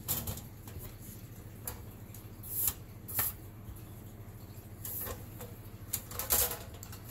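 Handling noise as an unboxed item is taken out and turned over in the hands: scattered light clicks and knocks, with a few brief rustles of packaging.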